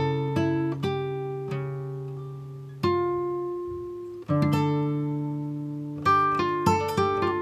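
Acoustic guitar music: slow plucked notes and chords, each left to ring and fade, with quicker notes near the end.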